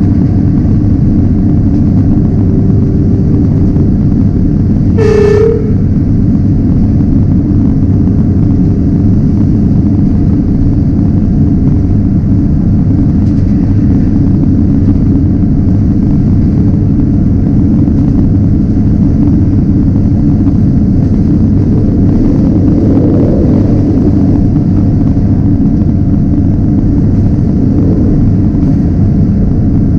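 Diesel train running along the rails with a steady, loud low rumble. About five seconds in, the horn gives one short toot.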